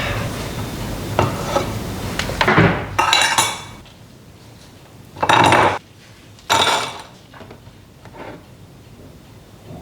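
Dishes and cutlery clattering in a series of irregular knocks and scrapes, with the loudest bursts about three, five and six and a half seconds in.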